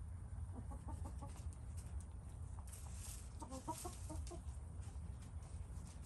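Chickens clucking in two short runs of quick repeated notes, about half a second in and again around the middle, over a steady low rumble.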